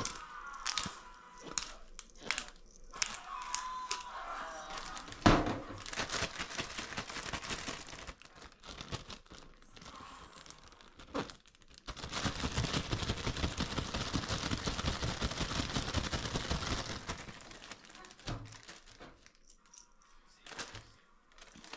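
Clean-up handling noise: plastic packaging being crumpled and rustled, with scattered clicks and knocks and one sharp thump about five seconds in. A dense, steady noise runs for about five seconds past the middle.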